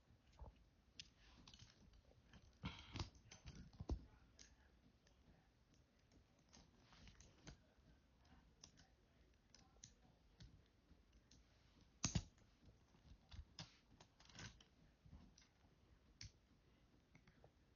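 Plastic toy-figure parts clicking as a Transformers figure is pulled apart by hand: faint scattered clicks, with a few louder snaps about three, four and twelve seconds in.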